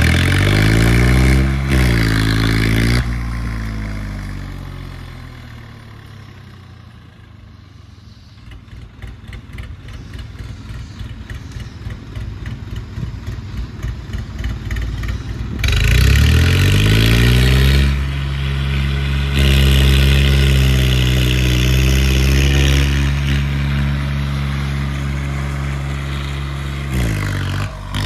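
Stunt tractor's diesel engine being revved hard: two quick rev bursts at the start, then fading to a low chug as the tractor moves away and builds back up. About 16 s in it revs up sharply and holds high revs, dipping briefly and picking up again near the end as the tractor rears into a wheelie.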